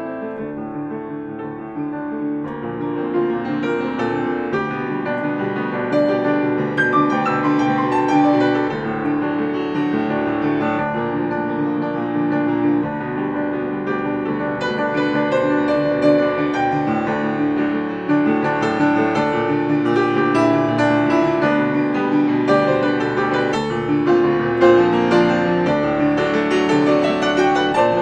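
Grand piano played solo, a continuous flow of notes across the range. It is softer for the first couple of seconds and grows fuller and louder from about two and a half seconds in.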